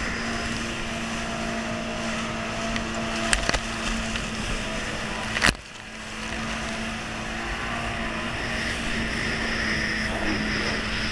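Jet ski engine running steadily at speed, with rushing water and spray. The hull smacks the water twice, lightly about three and a half seconds in and hard about five and a half seconds in, after which the sound is quieter for a moment.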